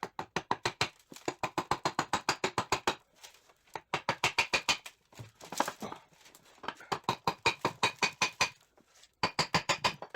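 Rapid, even metallic clicking, about a dozen clicks a second, in five bursts with short pauses: a hand ratchet being worked on a transmission's fasteners.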